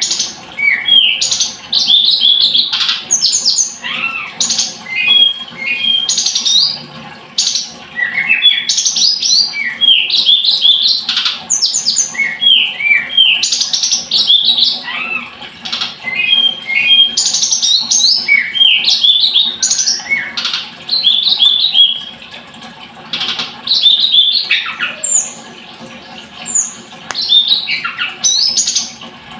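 A tledekan gunung songbird singing a fast, continuous string of short chirps and sliding whistled notes, with a few brief pauses between phrases.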